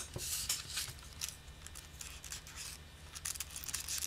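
Faint handling sounds: light clicks of the oboe's metal keys and the rustle of a strip of cigarette paper slipped under a pad to check that it seals.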